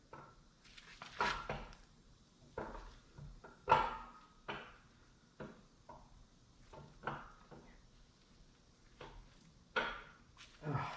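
Camshaft being slid and twisted into a 5.3 LS V8 block through its tight cam bearings: irregular light metal clicks and knocks as the lobes and journals touch the bearings, the loudest a little under four seconds in.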